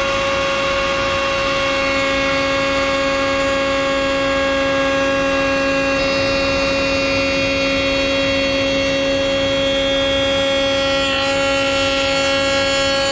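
Table-mounted router running at full speed with a bullnose bit, a steady high whine. Near the end the board meets the bit, the whine wavers slightly and a rougher cutting noise joins it.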